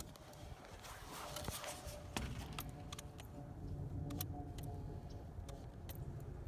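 A trigger spray bottle of Big Blu bubble leak-detector being squeezed, a series of short, sharp clicks and squirts, over a low steady rumble. It is spraying bubble solution onto a brazed joint on a heat pump line pressurised with nitrogen, as a leak check.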